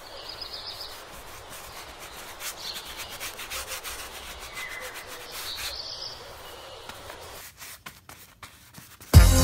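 Faint scratchy rubbing: a run of light, irregular strokes over a soft hiss, with a few faint high chirps. Loud electronic music cuts back in near the end.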